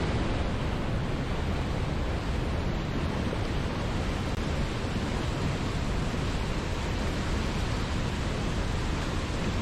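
Waterfall rushing: a steady, even wash of falling water with no change in level.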